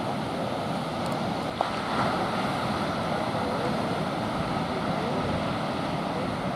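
Steady wash of surf breaking on the beach, with wind noise on the microphone. A single short click sounds about a second and a half in.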